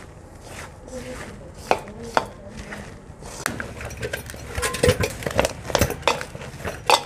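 Hands kneading onion-and-flour dough in a stainless steel bowl: soft squishing and pressing, with sharp metallic clinks and knocks against the bowl that come thicker and faster from about halfway.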